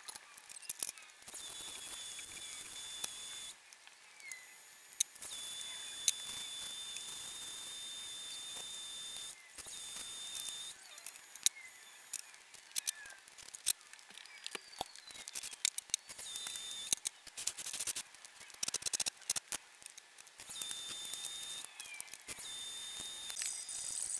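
MIG welder laying short welds on a car's new replacement rear body panel: stretches of hissing crackle one to four seconds long, broken by pauses full of scattered clicks and ticks.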